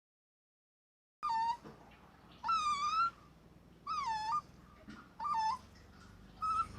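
Puppy whining and yelping in a series of about five high, wavering cries that bend up and down in pitch, starting about a second in.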